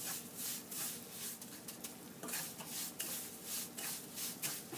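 A spoon stirring and scraping semolina as it roasts in ghee in a kadai, in quick repeated strokes, about three a second.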